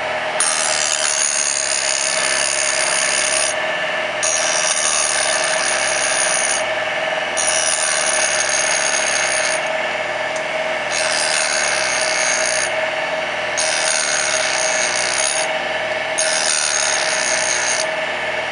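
A grinder running steadily while its wheel grinds the rounded-over dogs of a KX500 transmission gear, the high grinding hiss coming in six passes of about two to three seconds each, broken by short pauses as the wheel leaves the metal.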